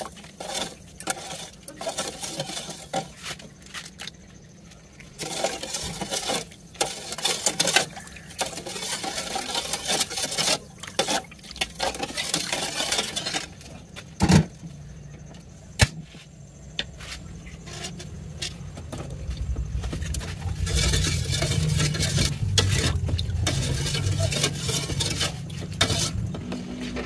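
Steel ladle stirring and scraping in a stainless steel bowl of agar-agar mixed with coconut milk, with many short clinks. Two sharp metallic knocks come about halfway through, and a low steady rumble takes over in the last several seconds.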